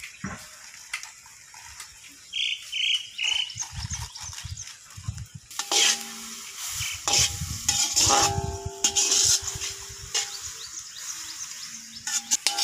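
Long metal ladle stirring and scraping a thick masala around a large iron kadai, with a light sizzle underneath; the scraping gets louder and busier about halfway through.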